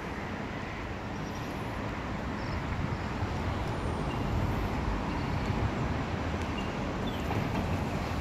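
Steady, low rumbling outdoor noise of the kind heard near traffic. It grows a little louder about halfway through.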